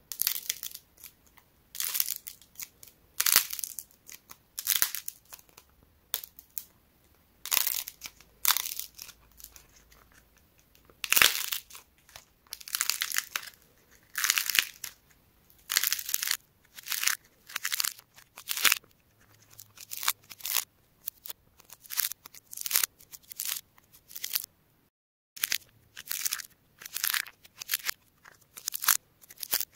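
Clay figures with a dried, hardened surface being squeezed and pulled apart by hand: a long, irregular series of crackling, crunching bursts as the crust splits, each lasting a fraction of a second to about a second. A brief silent break comes about five seconds before the end.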